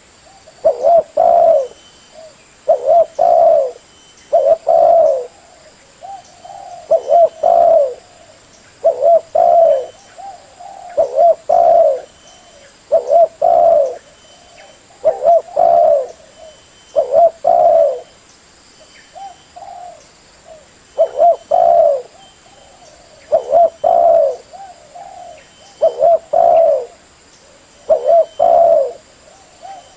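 Spotted dove cooing, its short phrase of a few notes repeated steadily about every two seconds.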